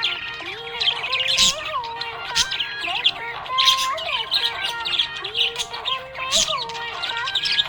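Budgie chirping and chattering in quick, busy runs of high tweets, with a melodic song playing underneath.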